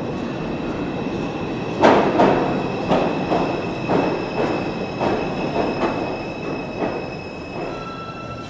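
An R142 subway train pulling into the station and slowing: its wheels clack over rail joints, the clacks coming further apart and fading as it brakes, under a steady high squeal.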